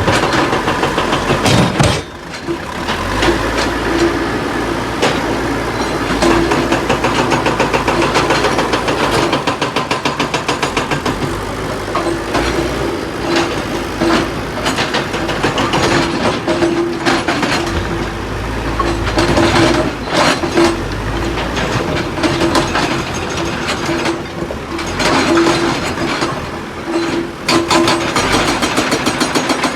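Tata Hitachi EX 210 LC excavator running with its hydraulic rock breaker hammering stone in rapid blows over the engine's low rumble. The hammering breaks off about two seconds in and comes back in stretches, running steadily again near the end.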